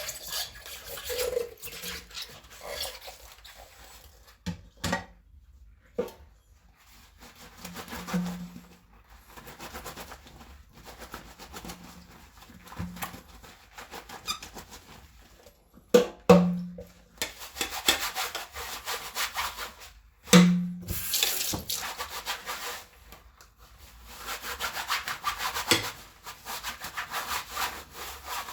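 A sponge scrubbing ceramic plates and bowls by hand, in runs of quick back-and-forth rubbing strokes. A few sharp knocks of dishes touching ring briefly, the loudest about 16 and 20 seconds in.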